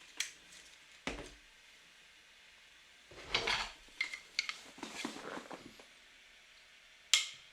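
Scattered light clicks, taps and a brief scrape of small hard objects being handled, about eight separate sounds with gaps of near silence between them.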